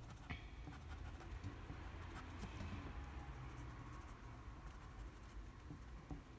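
Faint scratching of a Prismacolor French Grey 10% colored pencil on paper, laid down in short strokes.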